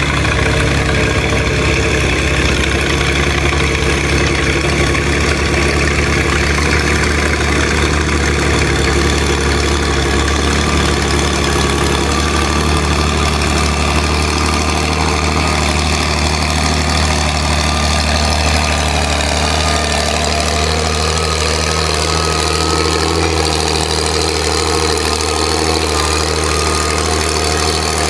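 Antique tractor engine running under load as it pulls a weight-transfer sled. From about halfway through, its pitch slowly sinks as the building sled weight lugs the engine down.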